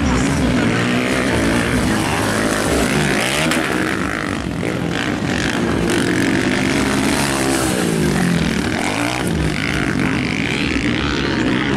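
Motocross dirt bike engines revving up and down as the riders race around the track. The engine pitch rises and falls again and again.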